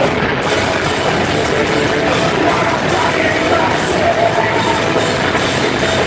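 Live heavy rock music, a band playing loud and without a break.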